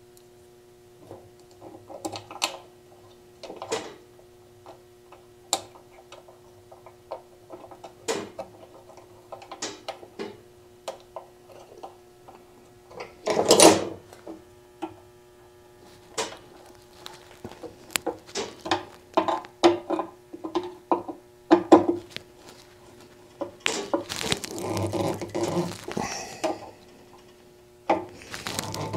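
Scattered small metal clicks and taps as a fuel petcock is handled and fitted onto a motorcycle fuel tank and its screws are turned with a screwdriver, over a steady low hum. There is a louder clatter about halfway through and a stretch of rustling handling near the end.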